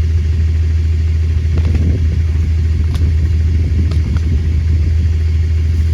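A large engine running steadily with a deep, even rumble, with a couple of faint clicks about three and four seconds in.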